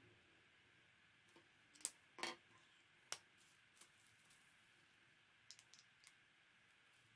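A few faint clicks and taps from felt-tip marker pens being handled, capped and set down on a wooden table. The sharpest clicks come about two and three seconds in, and a quick run of small ticks comes later, over near-silent room tone.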